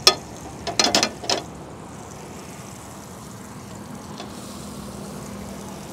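Butter sizzling on a hot flat tawa griddle as halves of wheat flatbread are laid and pressed into it, with a few sharp clicks of metal tongs against the pan in the first second and a half.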